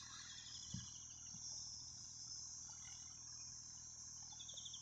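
Faint, steady chirring of insects, like crickets, with a short falling trill heard twice, once near the start and once near the end, over a faint low hum.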